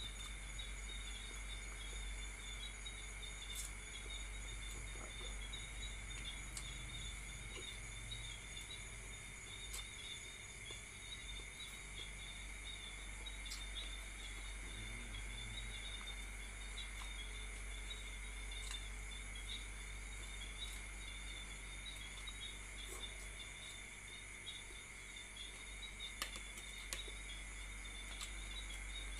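Crickets trilling steadily in the background, over a low hum, with a few faint clicks now and then.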